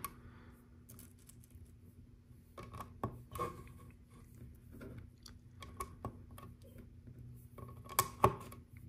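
Small round LEGO pieces being pressed onto a plastic baseplate and handled: scattered small plastic clicks, the sharpest two close together near the end.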